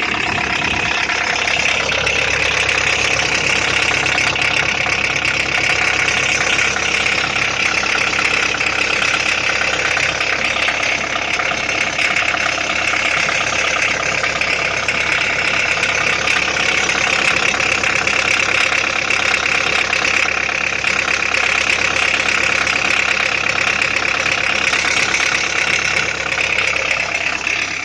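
Car engine idling with a steady rapid knock. The owner says the knock shows on a cold engine and nearly disappears once it warms to about 70 degrees, and he does not know its cause.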